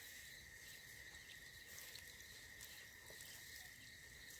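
Faint, steady trilling of crickets at night, holding one high pitch, with a few soft ticks.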